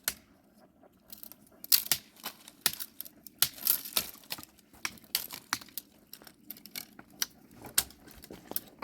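Dry wood crackling and snapping in an irregular series of sharp cracks, some loud and others faint, over a low rustle.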